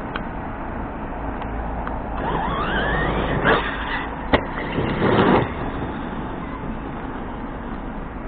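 Brushless motor of an Arrma Kraton RC truck whining up in pitch as it accelerates, then loud noisy bursts of the truck driving hard, with a single sharp knock in between.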